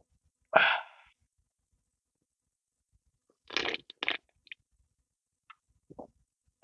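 A person drinking from a can of sparkling passion fruit drink. There is a short, loud burst of breath about half a second in, then swallowing sounds around three and a half seconds in, followed by a few small mouth clicks.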